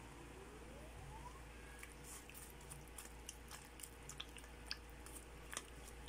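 Faint, irregular wet clicks and pops from squid simmering in broth inside an electric rice cooker, coming mostly in the second half, over a low steady hum. A short, faint tone rises in pitch near the start.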